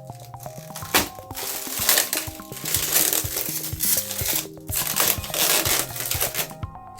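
Protective plastic film crinkling and crackling as it is peeled off a PC case's tempered glass panel. It starts about a second in with a sharp crackle and goes on until just before the end, over background music of stepped electronic notes.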